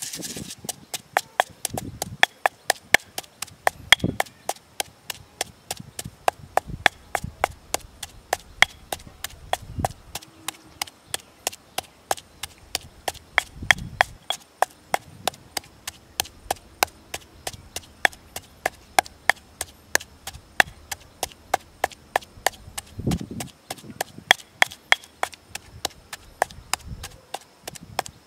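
Stone pestle knocking in a stone mortar while pounding salt and chilli: a steady run of sharp clicks, about three a second.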